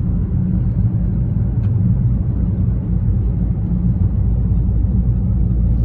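Steady low rumble of a car in motion, with road and engine noise heard from inside the cabin.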